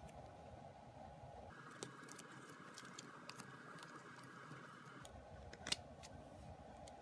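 Near silence: a steady low hiss with a few faint clicks and ticks in the middle and one sharper click about two-thirds of the way through.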